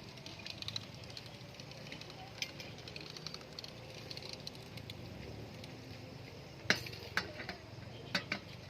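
Scattered light clinks and knocks of small hard objects, a few louder ones toward the end.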